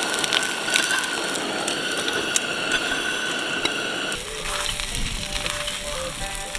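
Food sizzling in a covered cast-iron frying pan on a portable gas stove, with a steady high whine over it. About four seconds in the sizzle drops away to a quieter background with a few light clicks.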